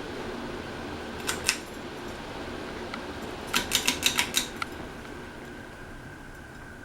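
Pull-chain switches of a Harbor Breeze Southlake ceiling fan clicking. There are two clicks about a second in, then a quick run of six or seven clicks near the middle, over the steady whir of the running fan. The whir eases slightly toward the end.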